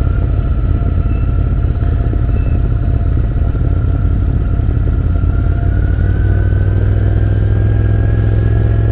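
Royal Enfield Continental GT650's parallel-twin engine running steadily under way at low speed, its revs rising gently over the second half.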